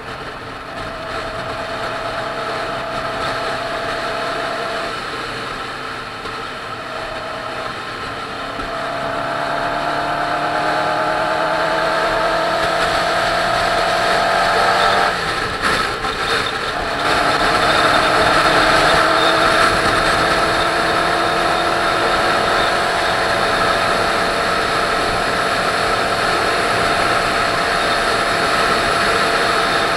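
Motorcycle engine and exhaust running under way at road speed, the pitch slowly climbing as it pulls. About halfway through the sound breaks off briefly and comes back lower, then climbs again, with steady wind rush on the microphone throughout.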